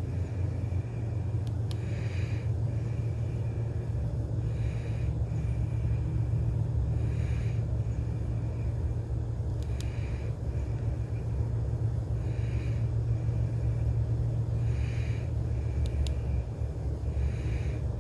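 Steady low rumble like a running vehicle engine, with a short high chirp that repeats about every two and a half seconds and a few faint clicks.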